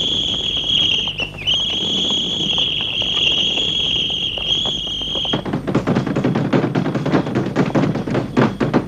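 A police whistle blown in one long, steady, shrill blast, broken briefly about a second in. It stops about five seconds in and gives way to a rapid, uneven clatter of boots running.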